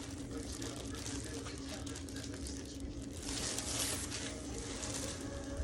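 Plastic packaging crinkling and rustling as flat plastic silhouette goose decoys are handled and unpacked, with scattered small clicks and a louder stretch of rustling about three seconds in.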